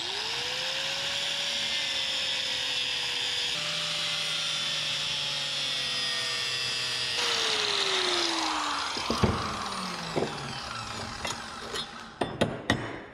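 Corded Craftsman angle grinder spinning up and grinding a welded steel bracket held in a bench vise, its motor whine steady over the hiss of the wheel on metal. The motor winds down about seven seconds in, and a few sharp metal clinks follow as the bracket is handled in the vise.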